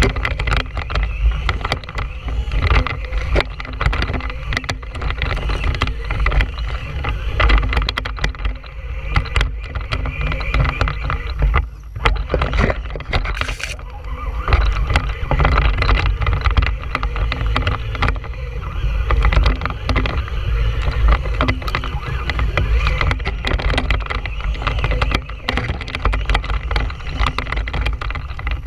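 Onboard sound from a camera on a pole mount riding a Traxxas Stampede 2WD RC truck as it drives over grass: a constant heavy low rumble with dense rattling and knocking as the truck bounces along.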